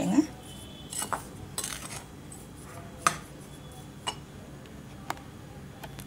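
Steel spoon stirring dry cake mix of powdered biscuits, cocoa and sugar in a bowl, clinking sharply against the bowl about once a second.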